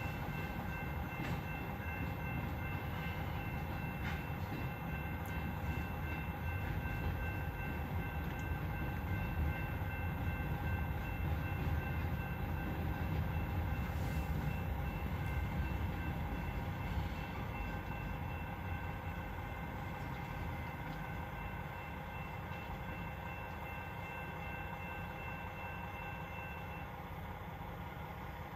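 Freight cars of a New England Central Railroad train rolling through a grade crossing: a steady low rumble that eases off as the end of the train passes. The crossing bell rings over it and stops near the end.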